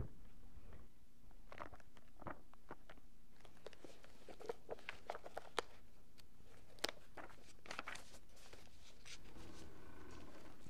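Pages of a paperback book being handled and turned: scattered small paper crinkles and clicks over a quiet room hum, with a low rumbling swell near the end.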